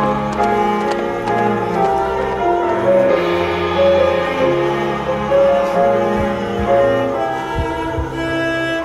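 Instrumental music from a stage musical's score: held notes moving slowly in a melody, with a few soft low thuds near the end.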